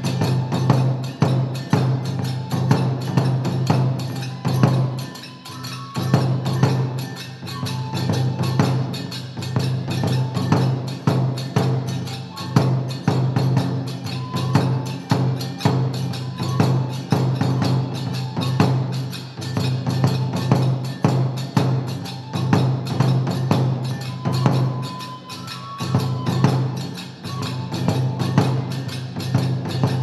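Kagura music for a gongen-mai lion dance: rapid, steady drum strokes with metallic hand-cymbal clashes, and a high flute playing short phrases now and then.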